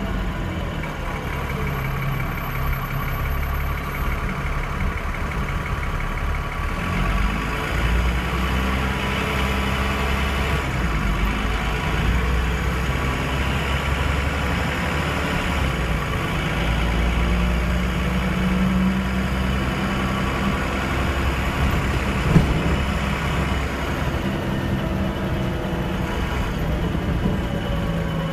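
Transbus Trident double-decker bus engine idling, heard from inside the lower saloon. A whine falls away at the start and begins rising again near the end as the bus moves off, with one sharp knock about 22 seconds in.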